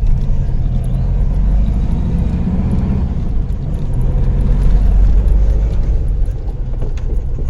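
Volkswagen Beetle rolling and braking, its air-cooled flat-four running, with a small crack from the brakes, a 'tronidito'. New shoes are fitted and the owner blames a loose, out-of-round brake drum.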